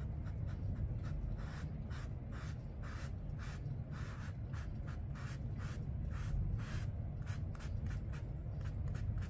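Paintbrush loaded with watercolor stroking across paper, soft short swishes about twice a second, over a steady low hum.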